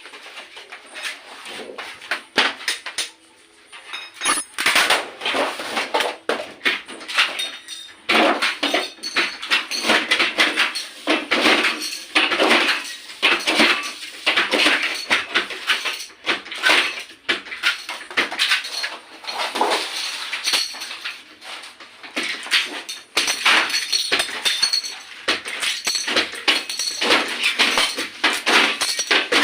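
Button-badge making machine with a 44 mm mould stamping out tin pin badges at high speed: a dense, irregular clatter of metal knocks and clinks, with a short lull about three seconds in.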